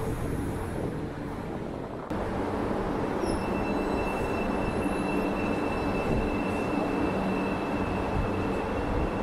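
Marmaray commuter electric train at the platform and then moving off: a steady rumble of the train, with a thin, steady high whine from about three seconds in as it pulls away.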